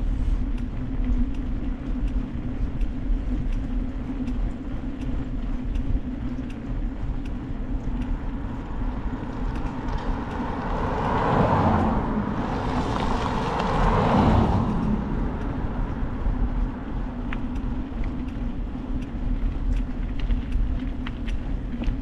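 Steady low rumble of riding outdoors, with a car approaching and passing about halfway through; its noise swells and fades over about five seconds.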